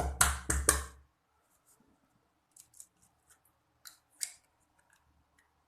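Eggs being cracked and separated: three or four sharp crackling cracks of eggshell in the first second, then a few faint clicks of shell and bowl.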